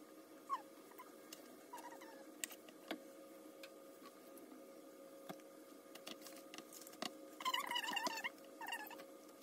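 Soft ticks and crinkles of plastic-gloved hands rolling boiled cabbage leaves, over a steady hum. Near the end a high, wavering call sounds twice and is the loudest thing heard.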